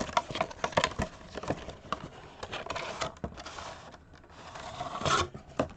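A Heroclix booster being opened by hand: packaging rustling and tearing in spells, with many sharp clicks and clatters of plastic miniatures being handled.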